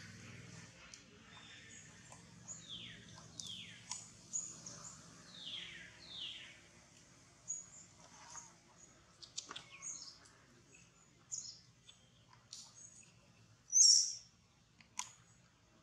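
Baby macaque giving scattered high-pitched squeaks and chirps, with two pairs of short falling calls in the first half. About fourteen seconds in comes one loud, sharp squeal, as the mother holds the baby down on its back.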